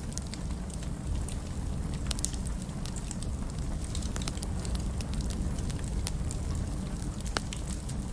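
Fireplace fire crackling: many small sharp pops over a steady low rumble, with one stronger pop near the end.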